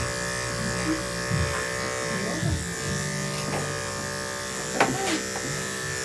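Electric dog grooming clippers running with a steady buzz, switched off right at the end.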